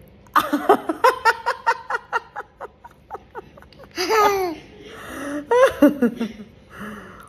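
A woman and a toddler laughing together: a quick run of short laughs for about two and a half seconds, then two shorter bursts of laughter, one in the middle and one near the end.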